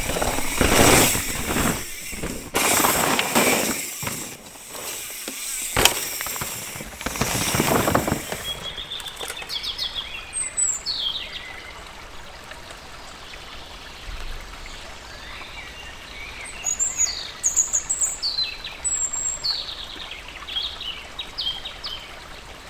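A mountain bike ridden fast over a dirt trail: surging noise of tyres on loose ground, with a sharp knock about six seconds in. After about eight seconds the bike noise stops and birds are left chirping.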